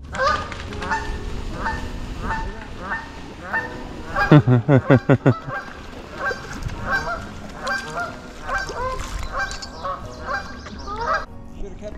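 Geese honking over and over in short repeated calls, with a louder rapid burst of about half a dozen falling honks about four seconds in.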